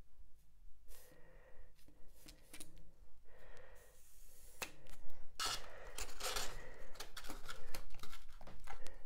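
Rigid Styrodur foam blocks being handled and rubbed against each other. Scattered light knocks and scrapes give way, about halfway through, to dense dry scratching.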